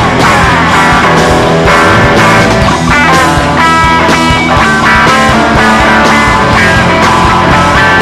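Live rock band playing loudly: sustained electric guitar lead lines over bass and drums, with no singing.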